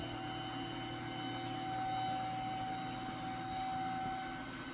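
Steady low machine hum with a thin high whine over it; the whine stops shortly before the end.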